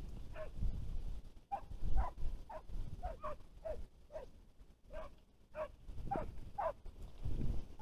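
Hunting hounds giving tongue in the reeds: a steady run of short yelping barks, about two a second, each falling in pitch, the cry of hounds working game on a scent. Strong wind rumbles on the microphone underneath.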